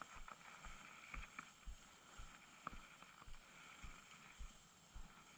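Tsurinoya Dark Wolf Ultra BFS baitcasting reel being cranked steadily on a lure retrieve: faint soft knocks about twice a second with small ticks.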